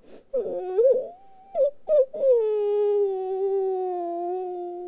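A woman's voice whimpering as a sad catgirl character: a few short whimpers, then one long whine held at a steady pitch for close to three seconds.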